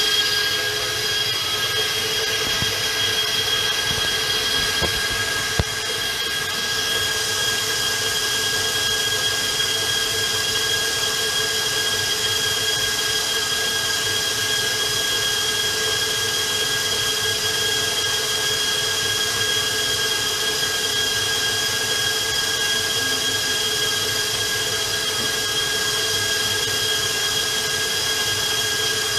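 Electric stand mixer running steadily at speed with its paddle, beating royal icing toward stiff-peak consistency: a steady motor whine over a whirring hiss. A single sharp knock about five and a half seconds in.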